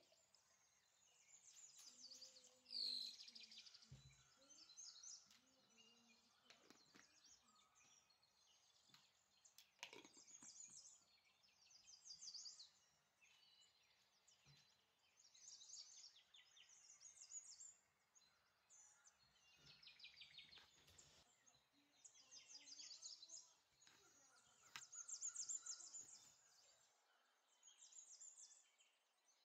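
Faint birdsong: short high chirps and trills that repeat every second or two, over a low steady hiss.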